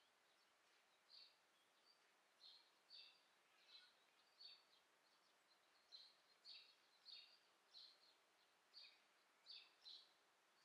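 Near silence with faint short bird chirps, about one or two a second at uneven spacing.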